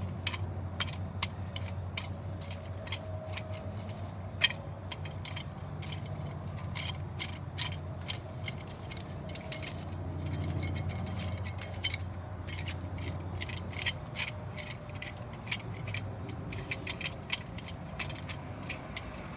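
Light metallic clinks, rattles and scrapes of hand tools and brake parts being handled, a C-clamp and the brake caliper among them, over a steady low hum.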